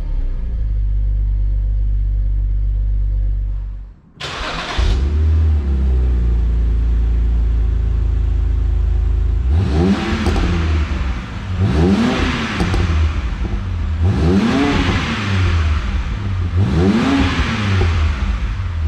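BMW N52 3.0-litre straight-six exhaust through a newly installed Active Autowerke aftermarket muffler, idling and then given four short throttle blips, each rising and falling in pitch. The note is not as loud as expected but clearly fuller than the factory exhaust.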